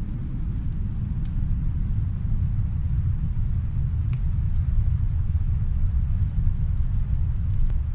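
Fireplace crackling: scattered sharp pops and snaps over a steady deep rumble.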